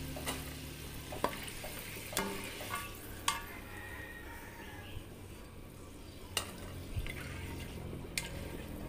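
Potato fries deep-frying in oil in a metal wok, a steady soft sizzle. A perforated skimmer stirs them, with several sharp clicks as it knocks against the wok.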